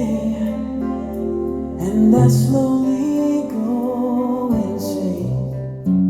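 Music played back through Klipsch R-51M bookshelf speakers: a sustained melody over held bass notes.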